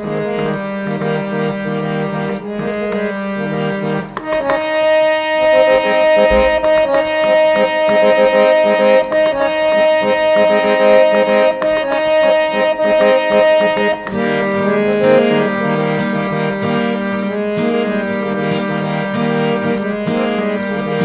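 Instrumental song introduction: sustained reed- or keyboard-like chords and melody over a steady beat, changing to a new passage about four seconds in and again about fourteen seconds in.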